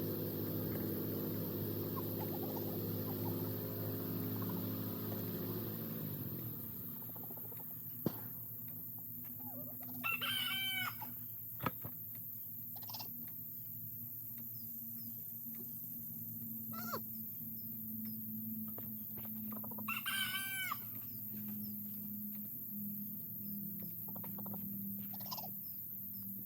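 A rooster crowing twice, each crow about a second long, once about ten seconds in and again about twenty seconds in. At the start a steady motor hum dies away about six seconds in. A couple of sharp clicks are also heard.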